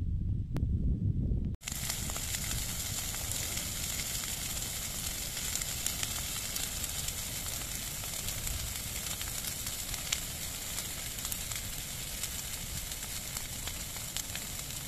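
A brief low rumble, then a brush pile of dry branches and dead leaves burning fiercely from about a second and a half in: a steady rushing hiss of flames, dotted with constant crackling and snapping.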